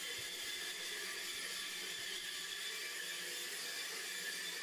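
Woodshop machinery running with a steady, even whir that does not change in pitch or load.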